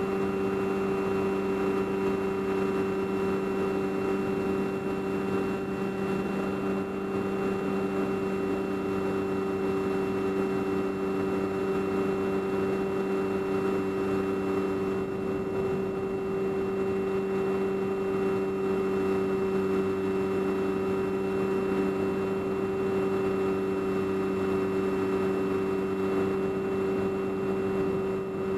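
Motor and propeller of an FPV model aircraft, heard from its onboard camera: a steady hum at one unchanging pitch under a layer of rushing air.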